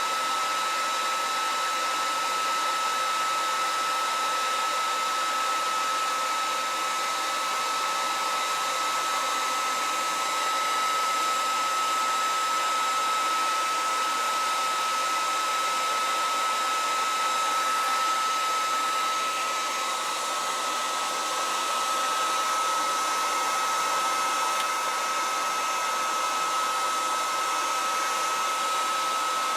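Handheld hair dryer running steadily on its high setting: an even rush of air with a constant high whine from the motor.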